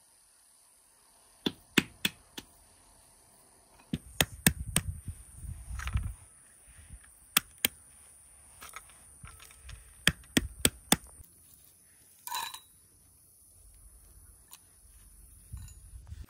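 Walnuts being cracked open and shelled by hand: sharp cracks and clicks of breaking shell, coming in several short clusters.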